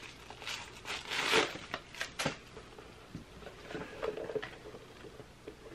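Rustling and handling noises of a fabric sneaker being pulled onto a foot, with a couple of sharp clicks about two seconds in, then quieter rustling.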